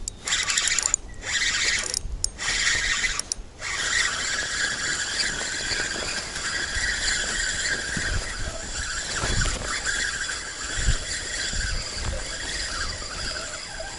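Spinning reel being cranked while a hooked small pike is reeled in: a steady, high mechanical whirr from the reel, with short pauses in the winding in the first few seconds.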